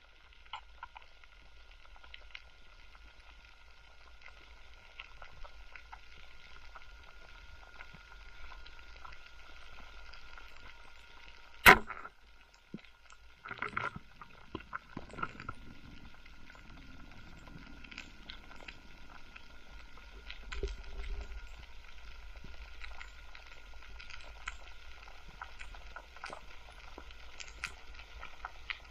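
Underwater crackle and scattered ticks of a coral reef at night, picked up through a camera's waterproof housing. One sharp, loud crack comes about twelve seconds in, followed by a short flurry of louder ticks and knocks.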